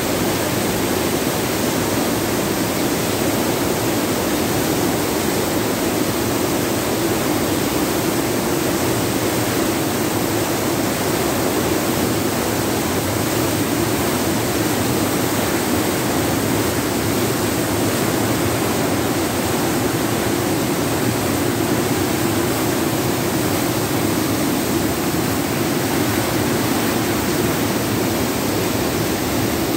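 River in flood rushing and churning beneath a footbridge: a loud, steady rush of floodwater that does not let up.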